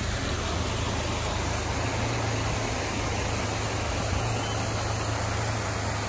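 Steady, even rush of fast-flowing river water, with a low rumble underneath.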